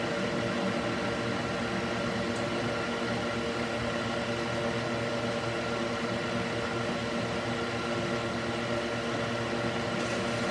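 Cooling fan mounted in a wooden box, running steadily: an even whir with a constant hum of several steady tones.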